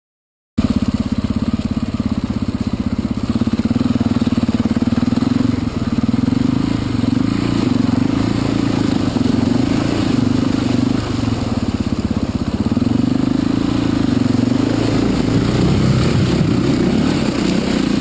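Enduro dirt bike engine running steadily at part throttle, recorded close from the rider's own bike, with small rises and falls in revs. It cuts in suddenly about half a second in.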